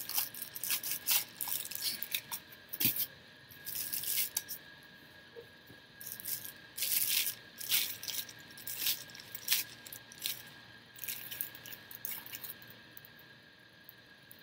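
Clear plastic packaging bag crinkling and rustling in quick irregular bursts as it is handled and pulled off a pair of shoes, dying down near the end.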